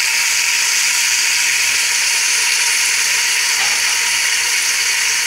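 Sliced onions, just tipped into hot oil in a cooking pot, sizzling with a steady hiss.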